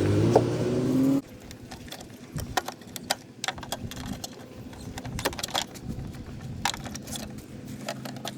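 A loud pitched sound that cuts off suddenly about a second in, then scattered sharp clicks, taps and light rattles of plastic trim pieces and clips being handled during tail light removal.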